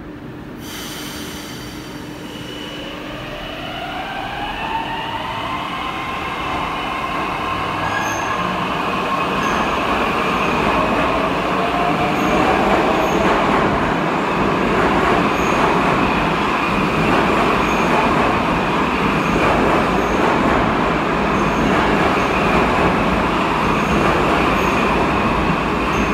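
St Petersburg metro train type 81-722.1 'Yubileyny' pulling out of the station. Its traction-motor whine rises in pitch over the first several seconds and then levels off, over wheel and running noise that grows louder as the cars roll past.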